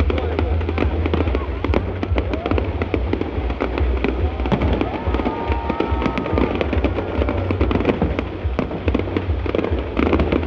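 A fireworks display: a dense, unbroken stream of bangs and crackles as shells burst overhead.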